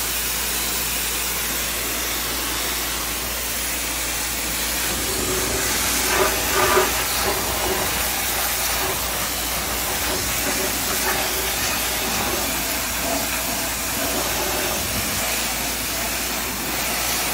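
High-pressure water jet from an electric pressure washer's 0° pinpoint nozzle, blasting mud off truck tires and wheels: a loud, steady hiss of spray.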